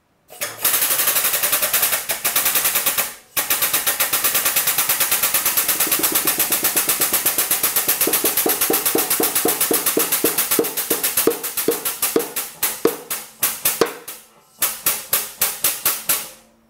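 Powered pump of a hydraulic shop press chattering in rapid, even strokes as the ram presses the two crankshaft halves together onto the new crank pin. The strokes slow and spread apart in the second half as the load builds, with two short pauses.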